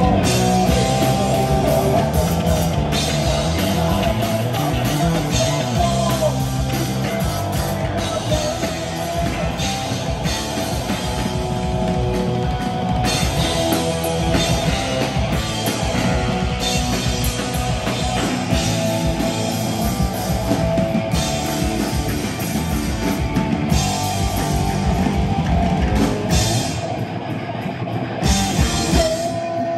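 Thrash metal band playing live: electric guitars, bass guitar and drum kit played loudly together through the stage amps.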